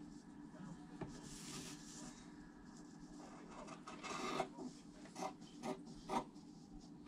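Fabric being handled and cut with scissors: soft rustling, then from about four seconds in a run of short rasping snips, roughly half a second to a second apart.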